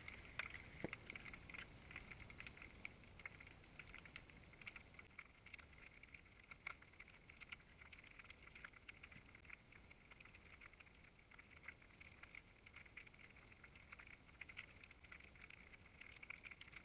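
Near silence, with faint scattered clicks and crackles recorded by an underwater camera submerged in harbour water.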